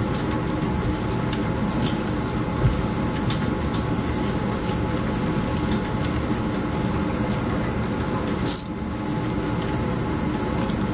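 Hands squishing and kneading a wet ground-meat and cracker mix in a stainless steel bowl, over a steady mechanical hum that lasts throughout.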